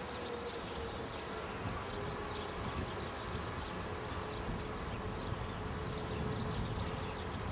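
E57 electro-mechanical fire siren winding down after being switched off, its single tone falling slowly in pitch and fading during a pause in the fire-alarm test signal. A faint steady tone lingers after it, over low outdoor rumble.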